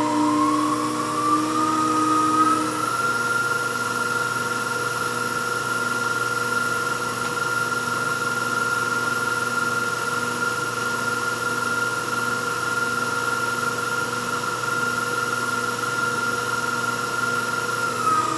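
Victor 3 hp electronic variable speed knee mill running in back gear on its inverter drive. Its whine rises in pitch over the first three seconds as the speed is turned up, then holds steady. The machine runs with a vibration that the operator puts down to the top cover.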